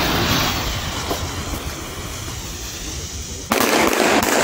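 Hissing fuse of a bundle of six Funke Blauer Berber F2 firecrackers (1.5 g flash powder each) burning and spraying sparks. About three and a half seconds in, the firecrackers start going off in a rapid string of sharp bangs.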